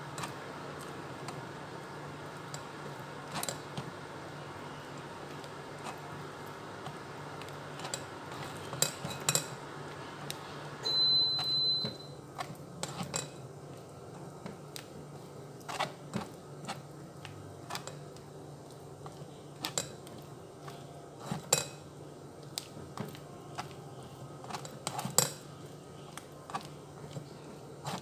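A spoon scraping and tapping against a metal mesh strainer as batter is pressed through it, with irregular clicks and knocks. About eleven seconds in, a single high beep sounds for about a second.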